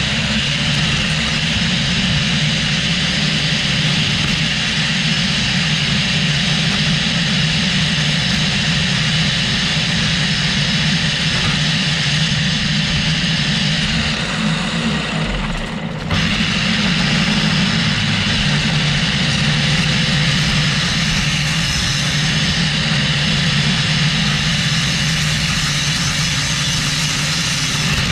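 Echo two-stroke string trimmer running at high throttle, its line cutting through overgrown grass and leaves along a sidewalk edge. The engine note is steady, with a brief dip about sixteen seconds in before it picks back up.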